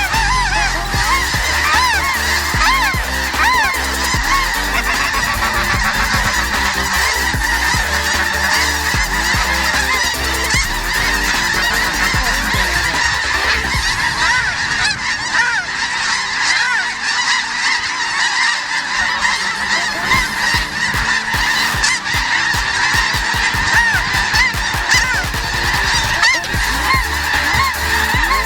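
A large flock of snow geese calling, a dense, unbroken chorus of high honks with many birds overlapping.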